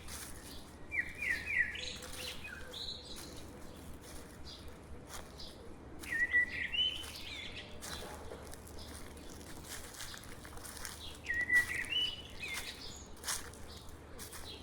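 A songbird sings the same short, quick phrase three times, about five seconds apart, over steady crunching footsteps on dry leaves.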